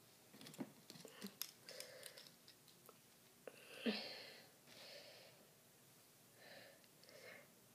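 Near silence with a person's faint breaths and soft mouth noises close to the microphone, light clicks and rustles in the first second or so, and one short voiced sigh with a falling pitch about four seconds in.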